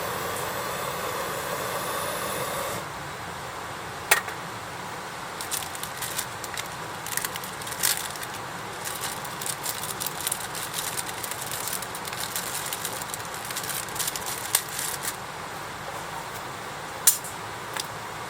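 Wood campfire crackling, with irregular sharp pops, the loudest three scattered through it. Before that, a steady rushing noise with faint tones cuts off abruptly about three seconds in.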